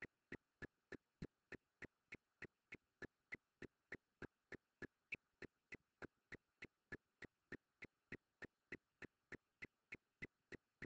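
Faint, evenly spaced ticks, about three a second, over near silence.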